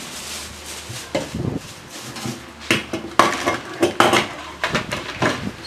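A clear plastic bag of hard plastic Play-Doh molds and tools being handled: the bag crinkles and the pieces inside rattle and clack together, with a run of sharp clacks from about halfway through.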